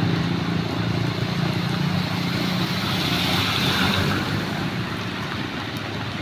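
Small motorcycle engine running at low speed while riding through shallow floodwater, with a steady hiss of water spray from the tyres and wind. The engine hum eases off near the end.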